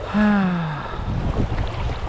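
Fast river water rushing steadily. About a quarter second in, a man makes a short wordless vocal sound that falls in pitch and lasts under a second.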